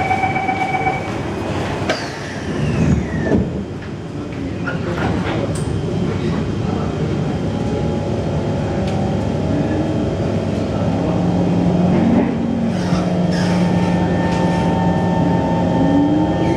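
Singapore MRT train at a station: a door-closing chime beeps at the start and the doors knock shut a couple of seconds in, then the train pulls away, its traction motors whining with a steady hum and a tone that rises in pitch near the end as it gathers speed.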